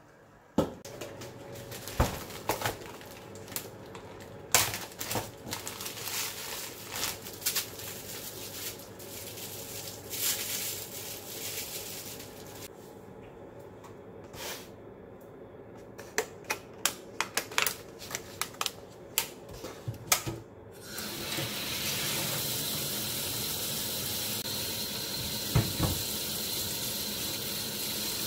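Kitchen utensils being handled on a stainless-steel counter: a series of irregular clacks and knocks as a plastic cutting board, a knife and bagged vegetables are set down and moved about. About two-thirds of the way through, a steady rush of running tap water starts and continues.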